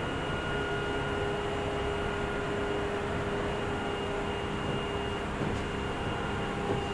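Interior running sound of a Tokyu 8500-series commuter train car: a steady rumble and hiss with a steady electrical hum that holds one pitch throughout.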